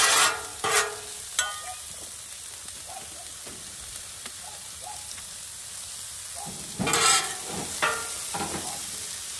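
Diced ham, green peppers and onions sizzling in oil on a Blackstone flat-top griddle, a steady hiss. Two metal spatulas scrape and clink against the steel cooktop a few times at the start, and again in a cluster from about seven seconds in as the mix is tossed.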